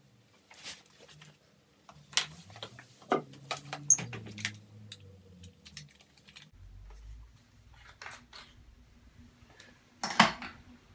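Scattered clicks and clatter of a Ryobi cordless drill and its bits being handled, with one louder knock near the end.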